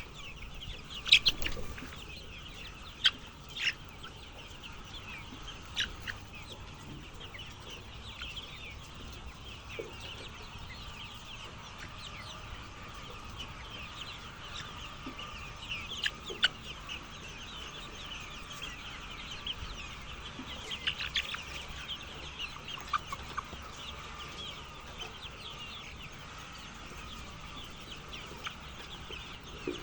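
A flock of chickens clucking and calling together as a steady chatter, with a few louder single calls standing out now and then.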